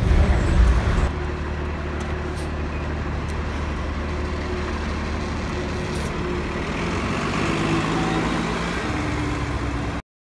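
Cummins ISL9 diesel engine of a Gillig Advantage transit bus. For about the first second it is a louder low rumble heard inside the cabin, then it is heard from the curb, running steadily as the bus pulls away and drives off. The sound cuts off just before the end.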